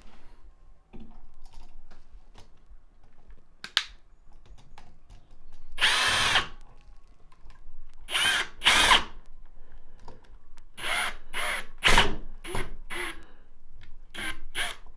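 Small cordless drill/driver whirring in a string of short bursts, the longest about six seconds in, driving in a switch terminal screw to clamp a wire. Light handling clicks before the first burst.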